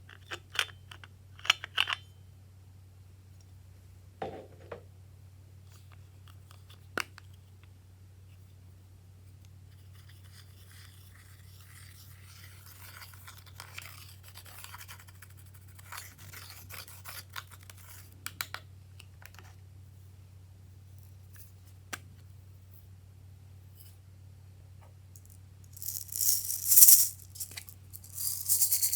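Hand-made slime being handled and mixed: sharp clicks and taps of containers at first, then soft, irregular crackly squishing while it is worked, and a loud burst of crackling near the end, over a steady low hum.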